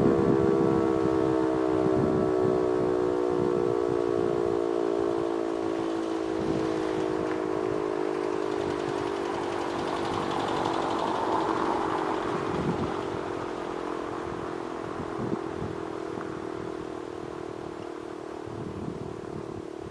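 E-57 motor siren winding down after its warning signal, its stack of tones sliding slowly lower and fading as the rotor coasts to a stop. Low irregular thumps of wind on the microphone sound underneath.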